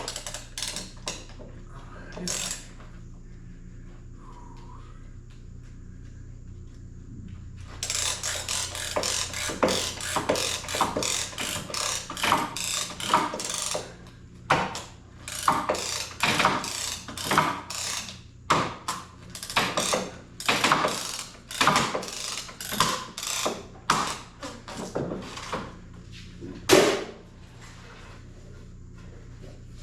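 A rapid run of sharp mechanical clicks and clacks, dense for several seconds and then spaced out into single strokes, over a steady low hum.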